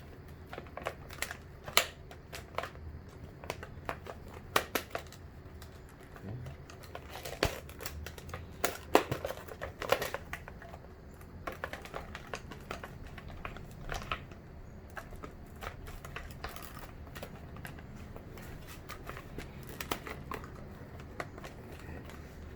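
Plastic wiring connectors and the wiring harness being handled and fitted by hand: irregular clicks, taps and rustling, busiest in the first half.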